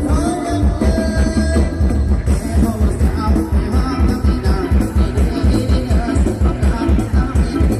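Loud live Isan rock music from a rot hae sound-truck band: a fast, heavy bass drum beat under a singer's wavering melody and amplified instruments.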